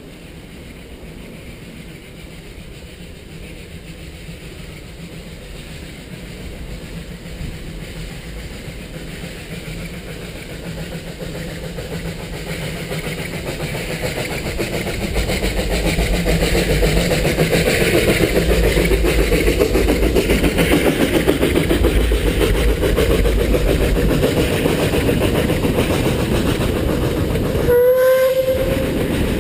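Narrow-gauge 2-6-2T steam locomotive working up a steep grade, its sound growing steadily louder as the train draws close, then wagons rolling past over the rails. A short whistle blast sounds near the end.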